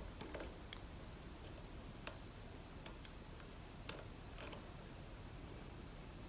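Faint, sparse metallic clicks of a lock pick and tension wrench working the pins inside an Assa Abloy Arrow lock, about half a dozen small ticks at irregular intervals.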